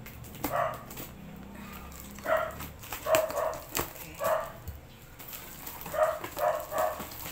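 A small dog yapping in repeated short, high barks that come in bunches, with faint clicks from a taped cardboard box being handled.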